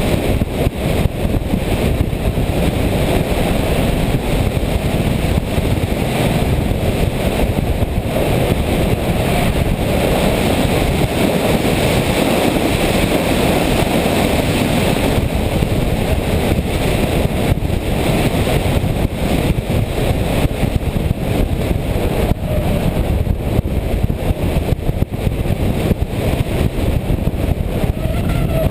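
Steady, loud rushing of airflow and motor noise picked up by the onboard camera of an RC FPV plane in flight.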